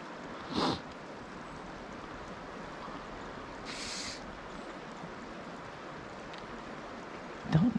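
Steady rush of river current flowing over a shallow riffle. A brief, sharper sound comes about half a second in, and a short hiss near the middle. A voice begins right at the end.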